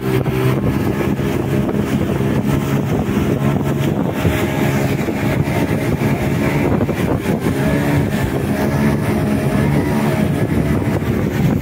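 A boat's engine running steadily under way, its drone wavering a little in pitch in the middle, with wind buffeting the microphone.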